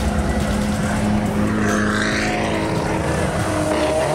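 Hill-climb race car engines at high revs as the cars pass on the road, the loudest pass about two seconds in. A second engine's note climbs near the end.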